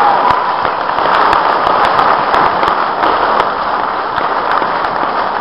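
Audience applauding steadily as a stage performance ends.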